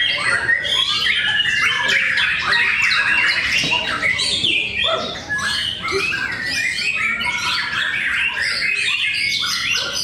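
Several caged white-rumped shamas (murai batu) singing against one another at once, a dense, unbroken chorus of rapid overlapping whistles, trills and harsh chattering notes.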